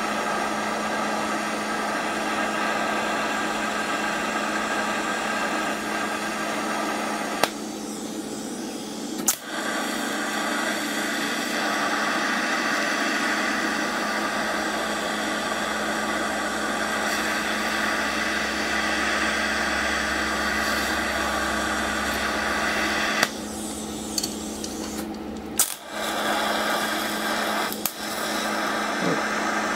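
TIG welding arc running on the steel outer race of a taper roller bearing, melting it so the race shrinks and can be pulled from its blind bore. A steady hiss and buzz over a constant hum, dipping twice for a couple of seconds, with a few sharp clicks.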